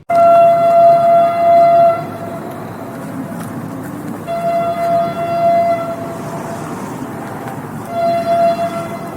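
Train horn sounding three blasts on one note, two long and one short, over the steady rumble of a passing train.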